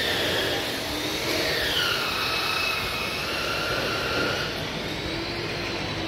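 Mechanical whine over construction-site background noise. Its pitch sags about two seconds in and climbs back toward the end.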